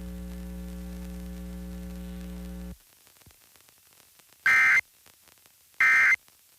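Steady electrical hum that cuts off suddenly a little under three seconds in. Then come two short, loud bursts of Emergency Alert System end-of-message data tones, the warbling digital code that closes the test alert, about a second and a half apart.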